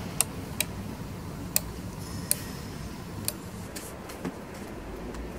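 Wall toggle light switches being flipped, giving a few sharp, separate clicks spaced irregularly over a low steady hum.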